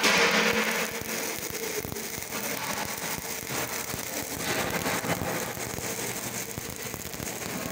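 Stick-welding (covered electrode) arc from a Sumig Tiger 250 inverter, crackling and sizzling continuously as a bead is run, somewhat louder for the first second and then steady.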